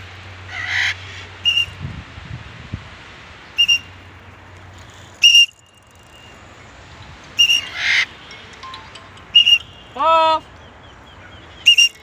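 Short, high whistle notes repeat every couple of seconds. Two harsh screeches are mixed in, typical of a red-sided eclectus parrot, and a longer rising call comes near the end.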